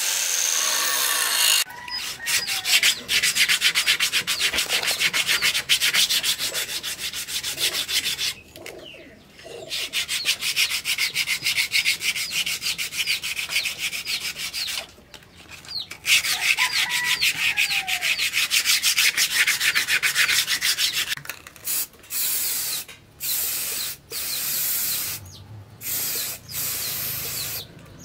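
Sandpaper rubbed rapidly back and forth along a wooden axe handle, in long runs of fast strokes with two short pauses, then in shorter separate passes near the end. At the very start an angle grinder's cutting disc is heard briefly against the wood.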